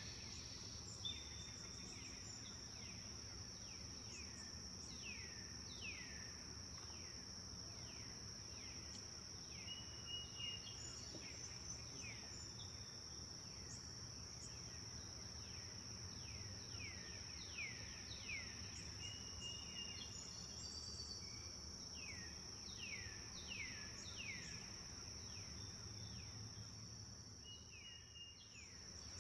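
Forest birds calling: many quick falling chirps and a few short whistles, over a steady high-pitched insect drone that dips briefly near the end.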